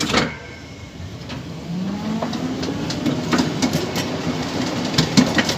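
Miniature ride-on railway train pulling away: a knock right at the start, then a drive whine that rises in pitch as it picks up speed, with the wheels clicking over the rail joints more and more often.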